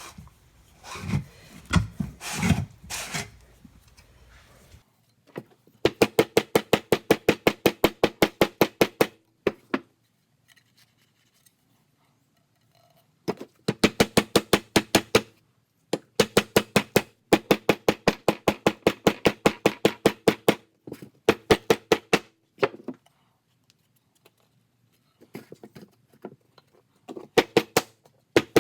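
A mallet tapping rapidly on a loudspeaker's bent metal frame to straighten it, several light strikes a second with a short ring on each. The taps come in runs of a few seconds with pauses between, after a few seconds of softer handling at the start.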